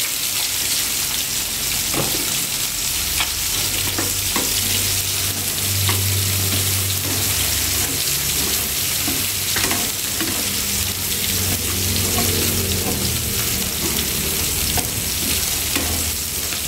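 Eggplant and minced pork stir-frying in a nonstick wok, sizzling steadily, with chopsticks clicking against the pan now and then as the dish is tossed with spring onions near the end of cooking. A low hum comes and goes underneath.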